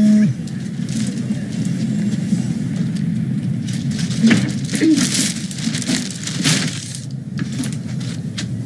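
Soft rustling and handling noises over a steady low hiss, as a mobile phone in a fabric flip case is picked up and held. Short crackles come and go, busiest in the middle.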